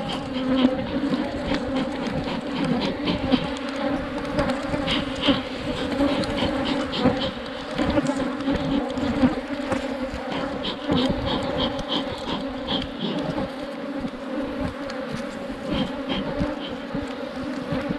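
Africanized honeybees buzzing in a dense, steady hum around an opened hive, a colony stirred up and defensive after the hive was opened.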